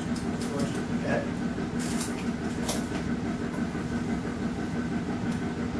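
Steady low mechanical hum of the meeting room's background noise, with a few faint rustles and clicks.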